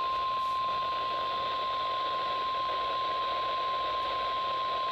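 NOAA Weather Radio warning alarm tone, a single steady high tone of about 1050 Hz held unbroken over radio static hiss. It is the alert signal that comes before a new warning message is broadcast.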